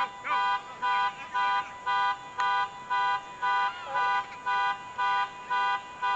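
A car alarm sounding a two-tone vehicle horn in rapid, even honks, about two a second.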